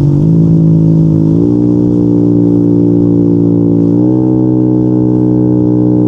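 Yamaha NMAX 155's single-cylinder four-stroke engine running through a Yoshimura RS2 aftermarket exhaust under throttle, its deep exhaust note stepping up in pitch about a second and a half in and again about four seconds in, holding steady between.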